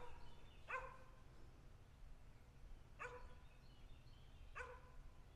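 A dog barking in the distance: four faint, short barks, irregularly spaced over about five seconds.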